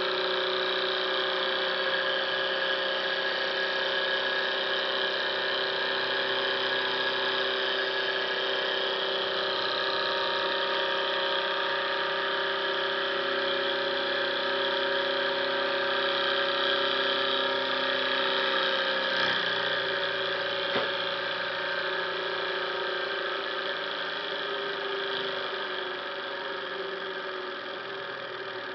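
Twin-cylinder gamma-type Stirling engine running fast, a steady mechanical whir with a hum of several fixed tones from its spinning flywheel, cranks and ball bearings. Two light clicks come about two-thirds of the way through, and the sound grows gradually quieter toward the end.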